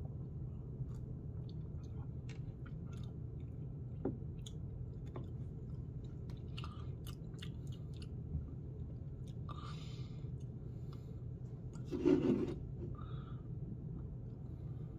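A person tasting a sip of beer: faint lip smacks and small mouth clicks over a steady low room hum, with a short breathy rustle about ten seconds in and a louder brief rustle about twelve seconds in.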